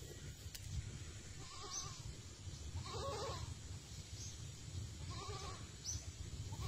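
A goat bleating four times, a second or two apart, each call short.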